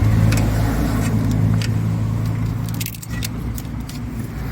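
Light metallic clicks and rattles of hand work on the sensor's clips and hardware, over a steady low hum that drops away about three seconds in.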